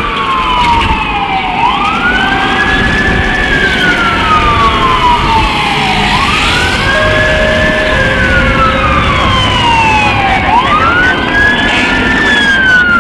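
Fire truck siren wailing, each cycle climbing quickly and sliding slowly back down, about once every four and a half seconds, over low traffic noise. Near the end a second, quicker siren pattern joins in.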